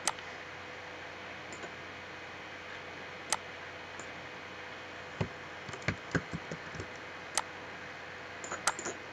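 Scattered clicks of a computer mouse and keyboard over a steady hiss, with a short flurry of taps about five to seven seconds in.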